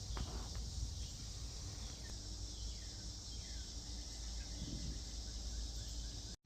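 Steady insect chorus with a low rumble underneath, and a few faint falling chirps a couple of seconds in. The sound cuts off abruptly near the end.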